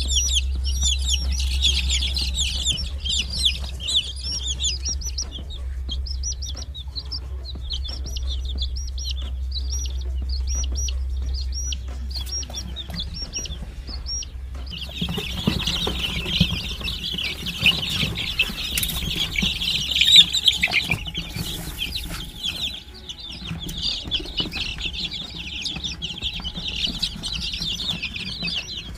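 A crowd of three-week-old Australorp and Plymouth Rock chicks peeping, a dense chorus of short high peeps that thins out for a while and swells again about halfway through. A low steady hum underlies the first half and stops where the peeping swells.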